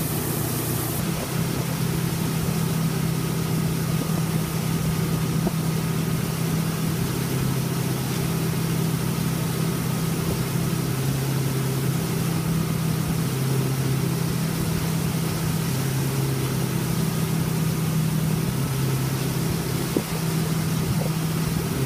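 Tow boat's engine running steadily at towing speed, its pitch wavering slightly up and down, over a steady rush of noise.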